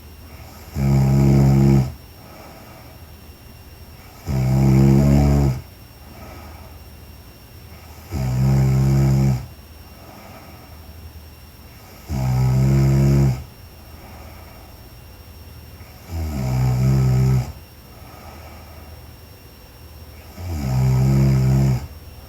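A sleeping woman snoring: six loud, pitched snores, each a little over a second long, coming regularly about every four seconds with quiet breathing gaps between them.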